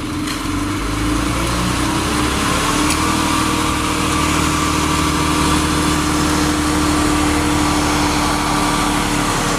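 Front-discharge concrete mixer truck's engine running hard while it turns the drum to discharge concrete; it speeds up about a second in and then holds a steady high drone.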